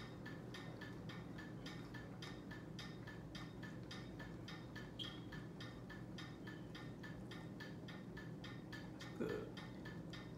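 Steady, rapid mechanical ticking, about four ticks a second, over a low steady hum, with one brief louder sound about nine seconds in.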